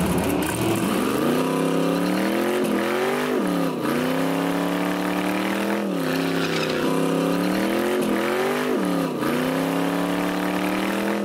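Drag car's engine held at high revs during a burnout, its pitch dropping and climbing back four times, over the hiss of the spinning slicks.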